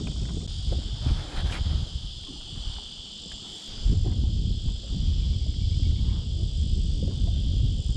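Wind buffeting the microphone, easing off for a couple of seconds in the middle, over a steady high-pitched insect drone.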